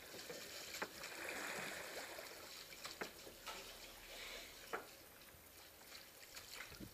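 Faint water trickling and lapping along a wooden rowing boat's hull as it glides with the oars held still, with a few sharp clicks.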